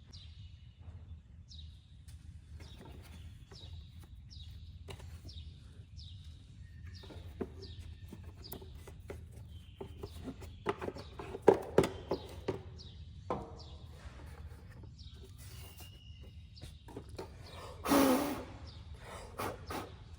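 A small bird chirps over and over, short falling notes about one every second, against a low steady hum. Sharp knocks and clicks come in from about ten seconds, and a louder clatter follows near the end.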